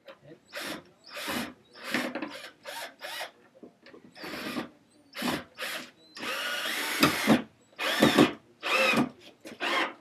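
Power drill driving a concrete screw into a wooden stair board, run in a series of short trigger bursts with one longer run about six seconds in.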